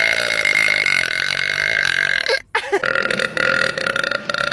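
A woman's long, loud burps: one drawn-out burp, a brief break about two and a half seconds in, then a second long burp.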